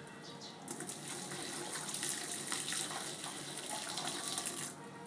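Cooking water poured from a pan into a stainless-steel colander and running through it, as boiled rice is drained. The pour starts about a second in and stops shortly before the end.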